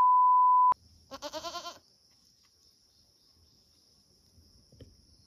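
A steady electronic beep for just under a second, then a goat bleating once, a short wavering bleat about a second in.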